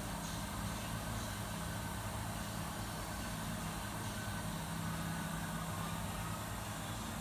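Steady low mechanical hum of kitchen machinery such as fans and refrigeration running, an even drone with a light hiss over it.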